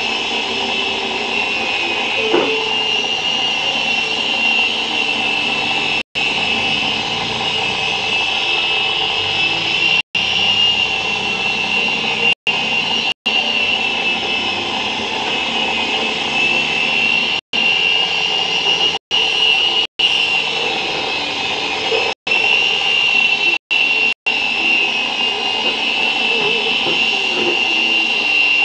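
JinXinDa 325 toy RC helicopter flying: its small electric motors and rotor blades give a steady high-pitched whine whose pitch wavers slightly as it manoeuvres. The sound drops out for a split second about ten times.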